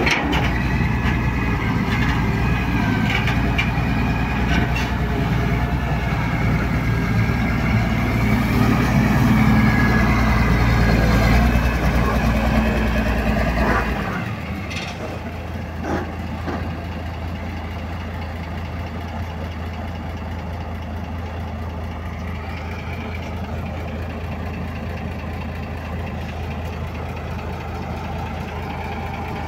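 Daewoo Solar 200W wheeled excavator's diesel engine working under load as it digs and dumps soil. About fourteen seconds in the sound drops abruptly to a steadier, quieter engine hum.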